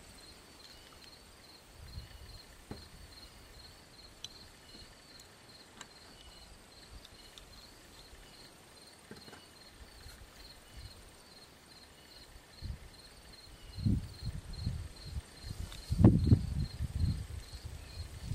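Faint, steady, evenly pulsing high chirp, insect-like. Irregular low knocks and rumbling start about three-quarters of the way through and are the loudest part.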